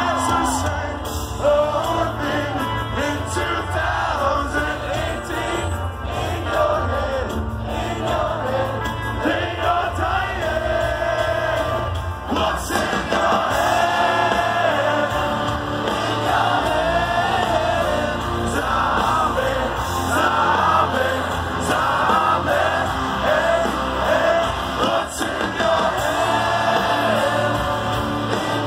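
Live rock band playing through an outdoor festival PA, with a sung melody over drums and guitars, heard from among the audience.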